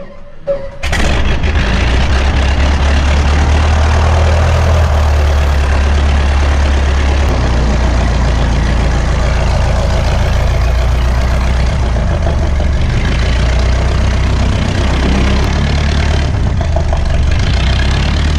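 De Havilland Chipmunk's piston engine starting: a few faint clicks, then it catches suddenly just under a second in and settles into a steady, loud idle.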